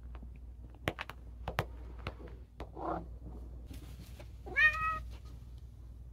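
A domestic cat meows once in the second half, a short call that rises and then holds, begging for cat food held out to it. Before that come a few sharp clicks.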